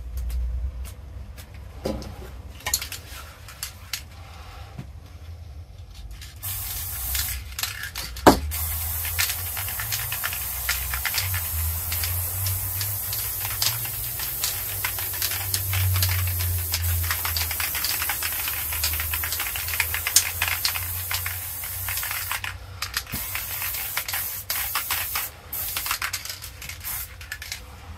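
Aerosol spray-paint can hissing steadily as red paint is sprayed in long passes, starting about six seconds in, with a brief break near the end. Before the spraying there are light clicks and knocks of the can being handled, and a sharp knock soon after the spraying starts.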